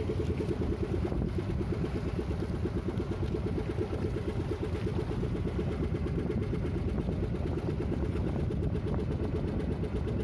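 Small fishing boat's engine running steadily with a fast, even throb as the boat moves through choppy water.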